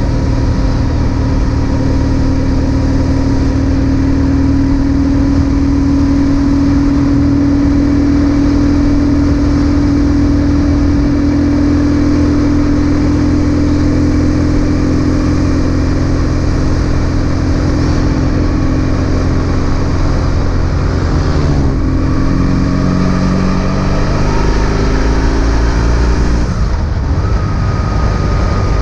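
BMW R1150 GS boxer-twin engine running steadily under way. Toward the end its note climbs as the bike accelerates, then breaks off briefly before settling again.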